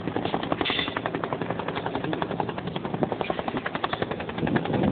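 Bell UH-1 Huey helicopter flying in to land. Its two-bladed main rotor beats in a fast, steady chop of about ten blade beats a second.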